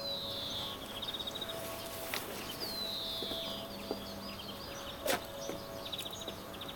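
A small songbird singing: twice a thin, high whistle slides down and runs into a quick trill, with other short high chirps between, over steady outdoor background noise. A single sharp click about five seconds in.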